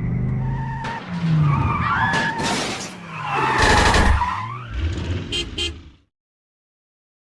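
A dense jumble of cartoon sound effects: noisy crashes and scrapes mixed with sliding whistle-like tones and a few sharp clicks. It cuts off abruptly about six seconds in.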